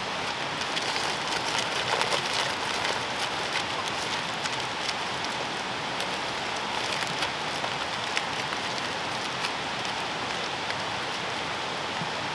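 Aluminium foil crinkling and crackling as a foil packet is folded over and crimped shut by hand, the crackles thickest in the first few seconds and thinning later, over a steady background hiss.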